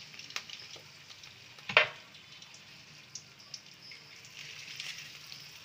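Stuffed colocasia (arbi) leaf rolls shallow-frying in hot oil over high heat: a steady sizzle with small pops and crackles. One sharp knock about two seconds in.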